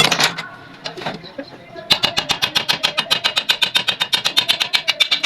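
Old sewing machine from around 1880 running at a steady speed, clicking about nine times a second as it stitches; it starts about two seconds in, after a brief short clatter.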